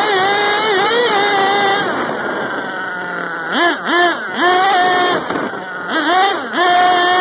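Small two-stroke engine of a gas-powered RC monster truck, heard from a phone strapped to the truck. It runs at high revs, backs off about two seconds in, then goes through a series of short rising throttle blips and brief bursts of revving.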